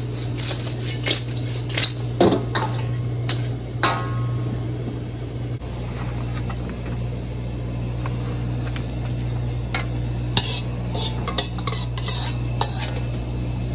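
Pots, dishes and metal utensils clattering and clinking during kitchen work, with a few brief ringing clinks and a busier run of clatter near the end, over a steady low hum.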